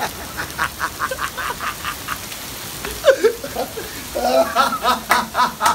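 A man laughing hard: a quick run of short ha-ha pulses, about five a second, then a second fit of laughter near the end, with heavy rain falling.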